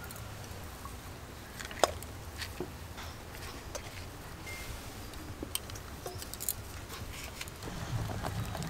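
Scattered light metallic clicks and scrapes of a metal spatula against a wok as the potato-chop filling is stirred and scraped out, over a low, steady background rumble. The sharpest click comes a little under two seconds in.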